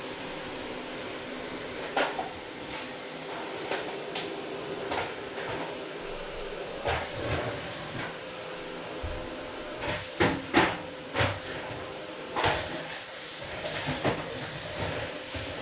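Household objects being handled during cleaning: scattered knocks and clatters, a quick cluster of them about two-thirds of the way in, over a steady background hiss with a faint hum.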